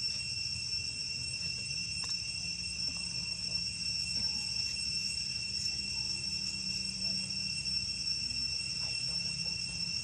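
Steady, unbroken high-pitched insect drone holding constant tones, with a low hum underneath.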